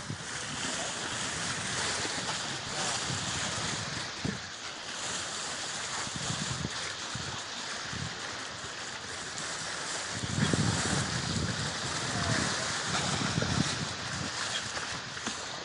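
Water rushing and splashing along a sailboat's hull as it moves through choppy water, with wind buffeting the microphone in gusts that grow louder about ten seconds in.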